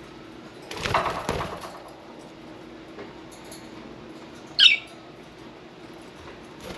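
Budgerigar flapping its wings in a flurry lasting about a second. Later comes a single sharp budgie chirp that falls in pitch, the loudest sound.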